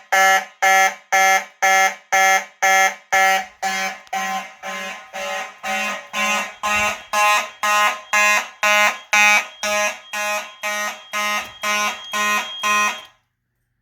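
Fire alarm horns sounding in march time, about two buzzy blasts a second. They cut off suddenly near the end.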